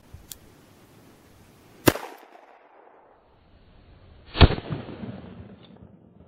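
Two shots from a Smith & Wesson Model 60 revolver firing PMC Starfire .38 Special +P 125-grain hollowpoints, about two and a half seconds apart. The second shot is duller and trails off longer.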